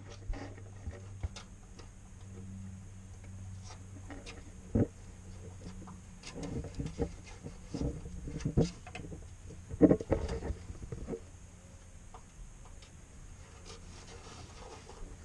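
Scattered light clicks and knocks of hand work on hoses and fittings under the hood, busiest in the middle, over a steady low hum.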